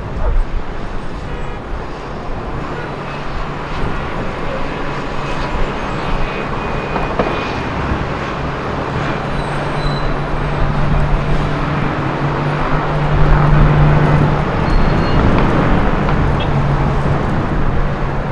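City street traffic noise, with a vehicle engine running steadily underneath; the hum swells around the middle.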